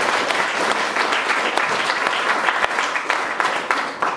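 Audience applauding: many hands clapping together in a steady patter that starts to die down at the very end.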